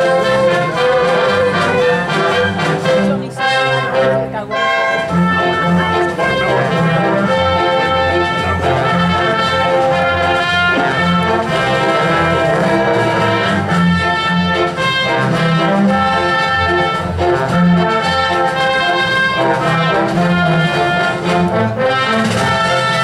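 Symphony orchestra playing, strings and brass together in a full, sustained passage, with a brief lull about three seconds in.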